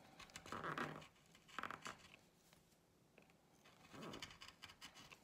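V-gouge cutting grooves into a wooden carving block: three short scraping cuts, about half a second in, at about a second and a half, and at about four seconds, with fainter scrapes near the end.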